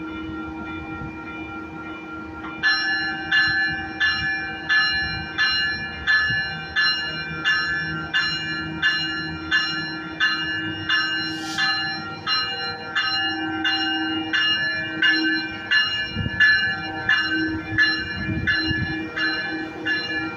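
A Metrolink commuter train's warning bell starts ringing about two and a half seconds in, striking evenly about three times every two seconds as the train begins to pull out, over the steady hum of the idling train.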